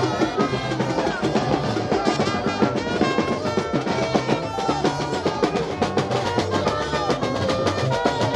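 Marching brass band playing: a trumpet melody over a busy, steady beat of snare and bass drums.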